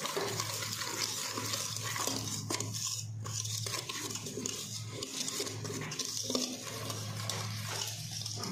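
A metal utensil stirring and scraping against a stainless steel mixing bowl with frequent small clinks, creaming butter and powdered sugar together by hand.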